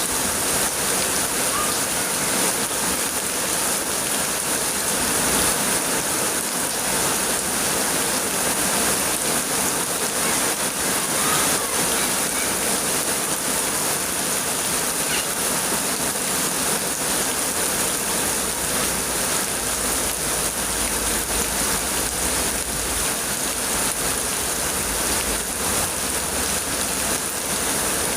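Heavy rain falling, a steady, even rush of water with no breaks.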